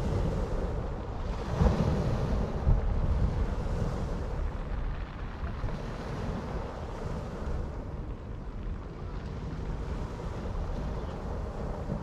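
Sea surf washing onto the shore, with wind rumbling on the microphone. A wave surges about two seconds in, then the wash settles to a lower, steady hiss.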